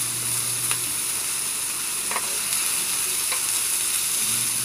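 Marinated pork sizzling steadily on a ridged grill pan, with a few light clicks as metal tongs turn the pieces.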